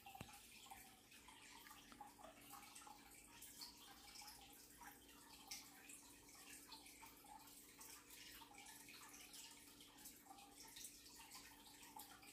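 Near silence: faint room tone with light scattered ticking and a faint steady hum.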